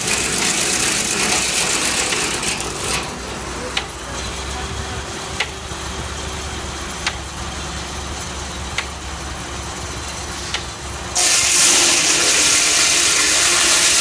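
Steam-powered sawmill with a large circular head saw on a flat belt drive. After a loud rushing opening, the blade spins free with a steady low hum and a sharp click about every second and a half. About 11 seconds in, a loud rush sets in suddenly as the carriage feeds the log into the blade and the saw starts cutting.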